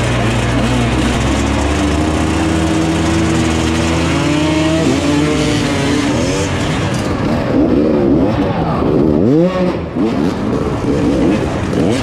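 Dirt bike engines racing at full throttle, the rider's own bike up close with other bikes around it. The engine note holds steady for the first few seconds, then swings up and down in repeated revs through the second half.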